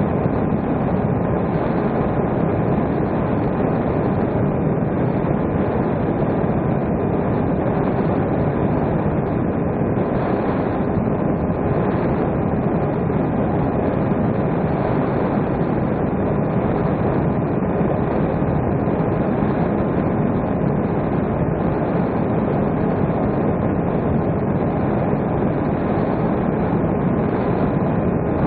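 Steady drone of an electric RC airplane's motor and propeller mixed with wind rush, picked up by the onboard camera, with faint steady whine tones running through it.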